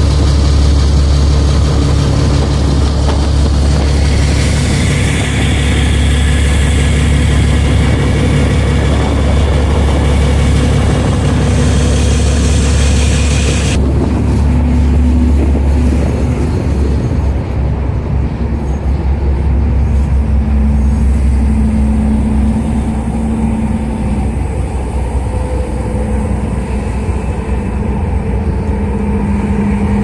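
Boat engine running steadily, a loud low drone with a steady hum, heard from on board. A rushing hiss on top of it cuts off abruptly about halfway through.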